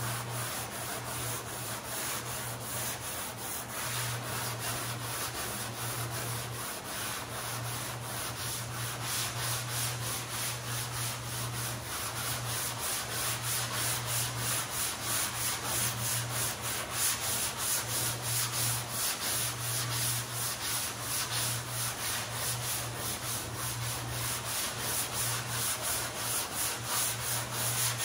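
Hand block-sanding the primed bedside panel of a Ford unibody truck: a sanding block rubbed back and forth over the panel in quick, even strokes. A low hum comes and goes underneath.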